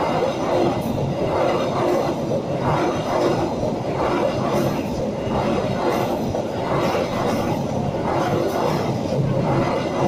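Premium-class passenger train coaches passing close by at speed: a loud, steady rush of steel wheels on rail with a regular clatter as the wheelsets cross the rail joints.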